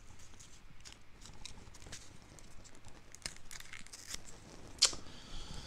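Faint scattered clicks and rustles of handling close to the microphone, with one sharper click near the end followed by a brief faint high tone.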